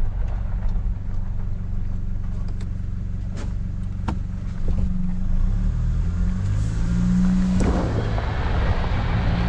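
A Toyota Prado's engine running, heard from inside the cabin while driving a rough dirt track. A couple of sharp knocks come from the bumps about halfway through. Then the engine revs up, and a louder rushing noise of tyres and air comes in near the end.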